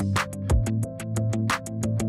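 Background electronic music with a drum-machine beat: quick hi-hat ticks, a deep kick drum about half a second in, and a held synth bass line.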